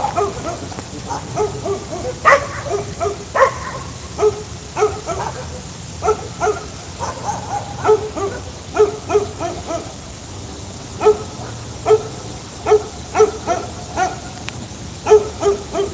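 A pack of dogs barking over and over, short barks coming a second or so apart with brief pauses.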